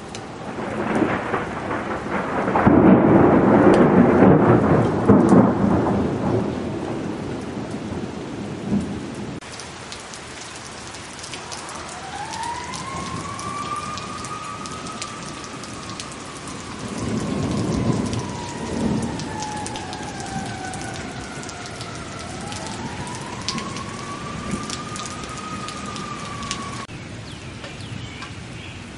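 Thunder rumbling loudly for several seconds over steady heavy rain, with a second, weaker roll of thunder later on. Over the rain a faint long wailing tone rises, sinks slowly and rises again.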